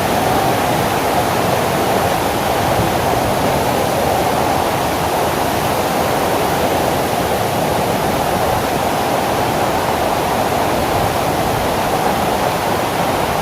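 Waterfall rushing, a loud steady roar of falling water close to the microphone.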